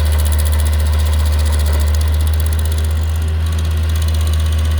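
Stump grinder running steadily with a deep engine drone while its cutter wheel grinds up a tree stump and roots.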